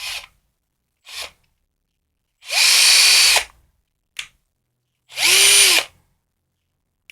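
Bosch GSR 1000 Smart cordless drill-driver run by trigger pulls: a short blip about a second in, then two runs of about a second each. The motor whine rises as it spins up and falls as it winds down, with a click between the two runs.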